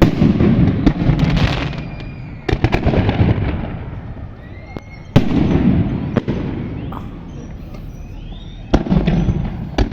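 Aerial fireworks going off: about five loud bangs a couple of seconds apart, each trailing into crackling and a rumbling echo, with faint rising whistles between the bursts.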